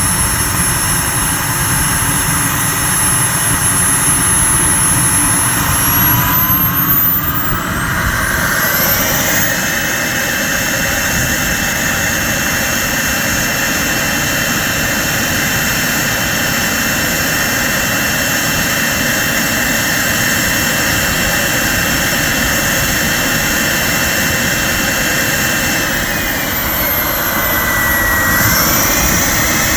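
KingTech K102 model jet turbine running with a high whine over rushing exhaust noise. About six seconds in it spools up, the whine rising in pitch, then holds steady at the higher speed. Near the end it eases down briefly and spools up again.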